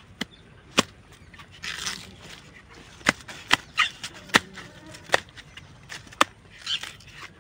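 A short-handled hoe chopping into the soft stem of a papaya plant near the ground. There are about eight sharp chops at uneven intervals, with softer rustling noises between them.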